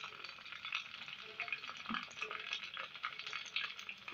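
Olive oil sizzling with frequent small crackles as a whole onion, cut into a flower shape and dusted with wheat flour, fries in a small saucepan.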